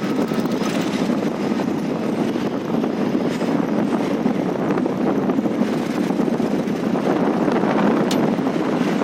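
Steady travel noise of a moving vehicle, a continuous rumble with wind buffeting the microphone. A brief click sounds about eight seconds in.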